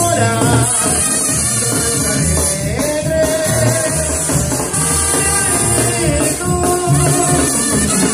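Latin American music with a steady drum beat and melody lines.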